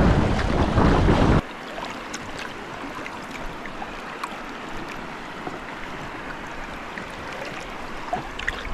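Wind buffeting the microphone loudly for about the first second and a half, then cutting off sharply. After it, a quieter steady wash of river water around a kayak, with faint light drips and splashes.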